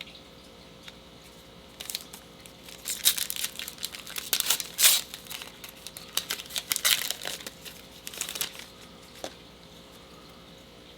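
Plastic wrapper of a trading-card pack being torn open and crinkled: a run of sharp crackles starting about two seconds in and stopping some six seconds later.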